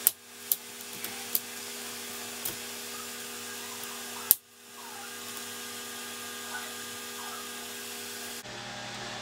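Plastic clips of an Acer Aspire V Nitro laptop's screen bezel snapping as the bezel is pried off by hand: a series of sharp snaps, the loudest about four seconds in, some of them tabs breaking off rather than unclipping. A steady hum and hiss runs underneath.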